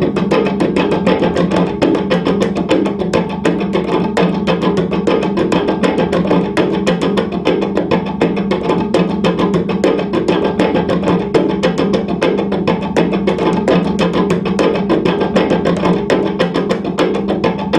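Cello played with extended technique: fast, irregular tapping and clicking on the strings and body over a steady low drone.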